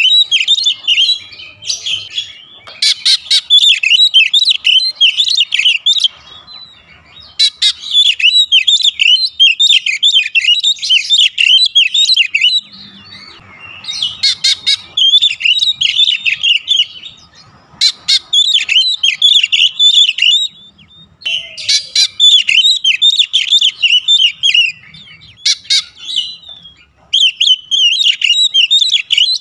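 Oriental magpie-robin (kacer) singing: a loud, high-pitched, fast, varied warbling song, delivered in bursts a few seconds long with brief pauses between them.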